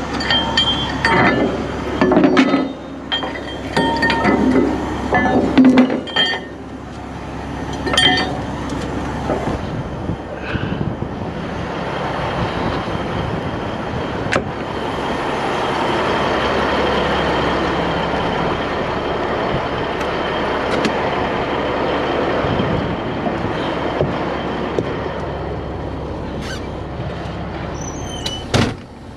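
Metal clanking and clinking, with several sharp knocks that ring out during the first ten seconds, followed by a steady low rumbling noise.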